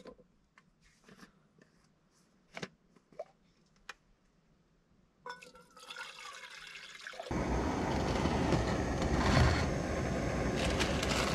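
Light handling clicks, then water poured from a bottle into a Jetboil cup, its pitch rising as the cup fills. About seven seconds in, the Jetboil gas burner is lit and runs with a steady loud hiss.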